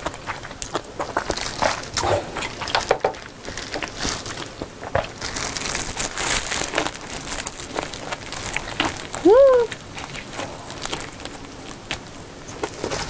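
Close-miked eating sounds: broth sipped from a small bowl, then a roll of gimbap (seaweed rice roll) bitten and chewed, with many wet mouth clicks and small crunches. About nine seconds in, a short hummed 'mm' that rises then dips is the loudest sound.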